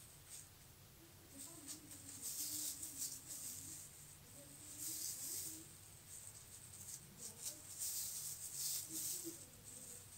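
Thin plastic food-prep gloves crinkling and rustling as gloved hands slice strawberries with a knife, in three short bursts a few seconds apart.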